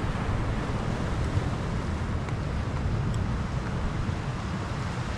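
Wind buffeting the microphone in a steady low rumble, over a hiss of sea surf washing on the shore rocks.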